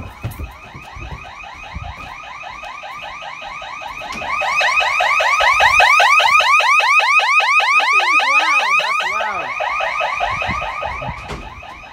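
Interior siren of a Safewatch Pro 3000 home security system sounding in alarm, a rapid string of rising sweeps several times a second. It gets louder about four seconds in and fades again after about nine seconds.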